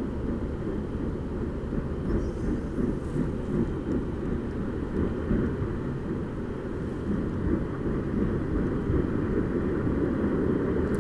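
A steady low rumbling noise with no distinct events, its level wavering slightly.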